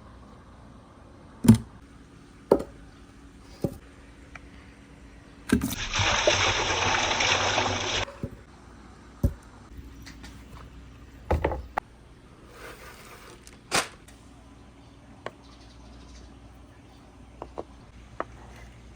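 Marbles clicking and knocking along a wooden marble run, a dozen or so separate hits. About six seconds in comes a loud two-second rush of water.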